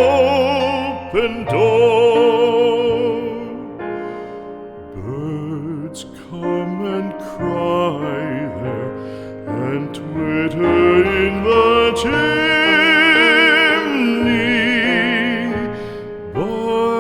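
Classical art song: a trained voice holding long notes with wide vibrato over piano accompaniment.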